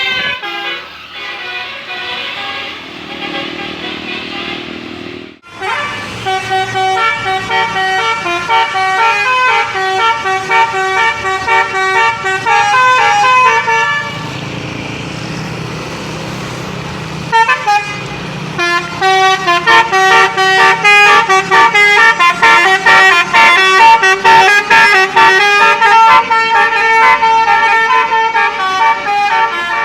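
Telolet Basuri musical bus horn playing fast, loud melodic runs of multi-note horn blasts. The tune breaks off for about three seconds midway, then starts again.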